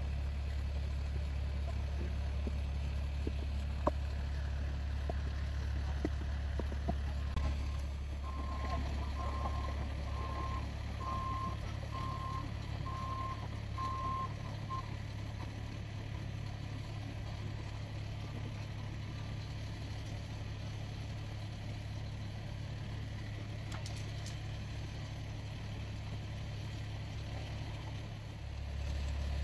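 Heavy vehicles idling with a steady low rumble. About seven seconds in, a truck's reversing alarm sounds a string of beeps, roughly one a second for about seven seconds.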